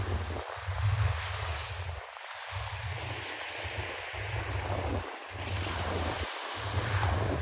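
Black Sea surf washing onto the shore, with gusty wind buffeting the microphone as a low rumble that comes and goes.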